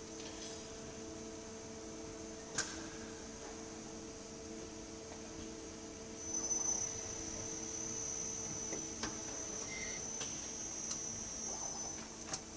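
Nakamura TMC20 II CNC lathe running: a steady mechanical hum with a high whine that grows louder about halfway through. One sharp click about two and a half seconds in, and a few lighter clicks near the end.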